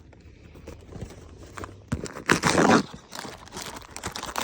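Plastic-wrapped snack packs being handled and dropped into a plastic tote: a few light knocks and a short rustle of crinkling wrappers a little over two seconds in.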